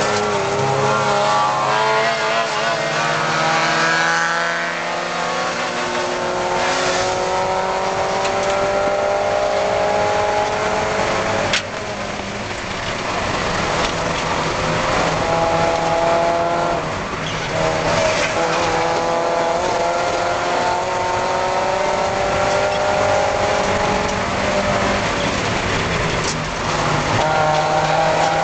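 Spec Miata (Mazda MX-5) four-cylinder race engine heard from inside the cockpit, pulling hard on track. Its pitch climbs slowly and drops back at gear changes a few times.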